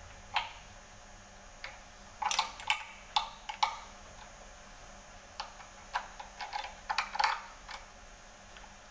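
Irregular metallic clicks and clinks of a hand wrench working bolts on the front of a big-block engine, in short clusters with pauses between, as a crank trigger bracket is fitted.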